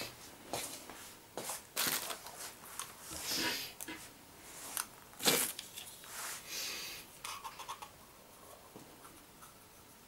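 Handling noises at a tabletop: paper rustling and small objects being picked up, scraped and set down, in a string of short irregular scrapes, the loudest about five seconds in.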